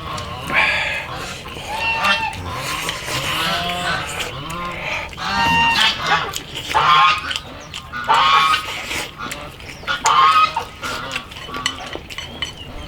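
Geese honking repeatedly, with many short calls scattered throughout.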